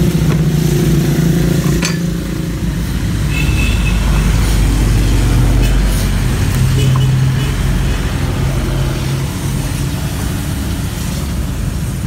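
Road traffic passing: motor vehicle engines running with a low hum that shifts in pitch as they go by. A knife taps a few times on a wooden chopping board.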